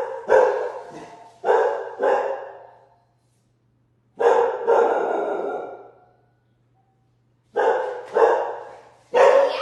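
A dog barking repeatedly, in pairs and short clusters of loud barks with pauses between them.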